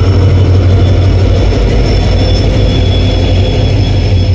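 Passenger train moving along the station platform: a loud, steady rumble with a low hum.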